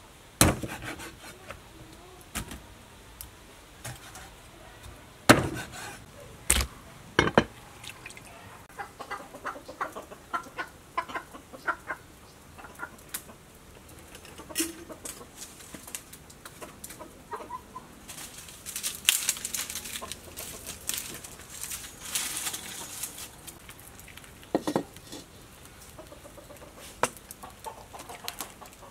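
Heavy cleaver chopping through a whole fish on a wooden chopping board: four loud chops in the first eight seconds. Chickens cluck in the background, and later there is lighter clatter and hiss.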